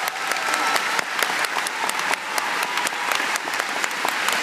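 A large crowd applauding and cheering, with many hands clapping at once.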